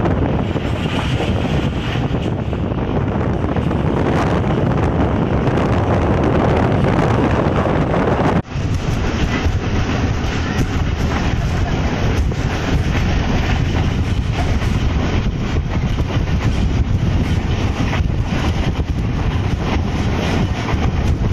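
Wind rushing over the microphone outside the window of a moving passenger train, over the train's running noise on the track. The sound drops out for an instant about eight seconds in, then carries on with less hiss in the highs.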